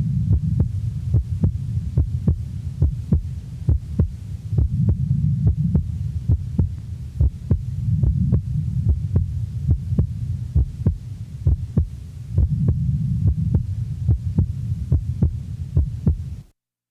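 Heart sounds heard through a stethoscope diaphragm at the base left of a normal person's chest: a steady run of sharp beats, with the second heart sound splitting on each inspiration (physiological splitting). Breath sounds swell and fade in the background about every four seconds, and the recording cuts off abruptly near the end.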